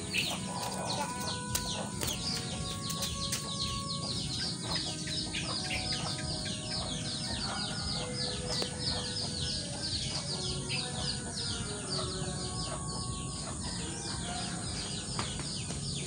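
Chickens and chicks calling: a dense, unbroken stream of short, high, falling peeps with scattered lower clucks, over a steady low hum.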